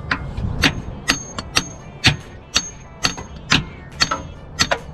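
Sharp metal-on-metal knocks, about two a second, some with a short ringing note: a steel tool being struck against the inner CV joint to pop the Honda CR-V's driver-side axle out of the transmission.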